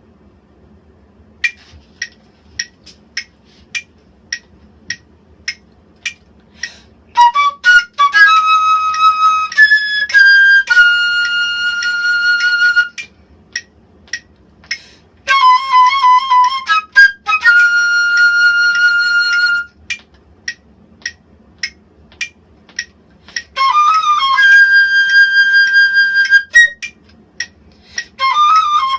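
A wind instrument, flute-like in tone, plays sustained notes with vibrato in three phrases. A metronome ticks steadily, a little under two clicks a second, before and between the phrases.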